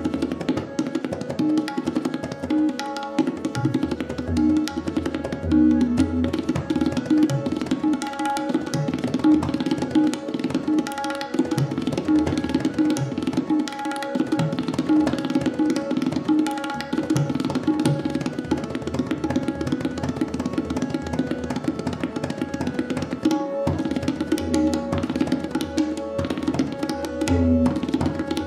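Tabla solo: rapid strokes on the ringing treble drum and the deep bass drum, played without pause. Behind it a harmonium holds a steady, repeating melody.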